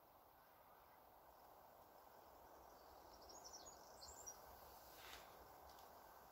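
Near silence: faint outdoor background hiss, with a few faint high chirps about three to four seconds in.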